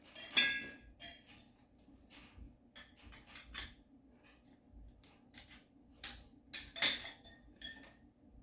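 Metal tubes of a garment rack clinking and knocking as they are handled and fitted together, with a sharp metallic clank that rings briefly just after the start and another loud clank about seven seconds in.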